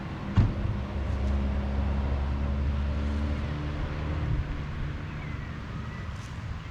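Low steady rumble with a single sharp thump about half a second in; the rumble eases off after about four and a half seconds.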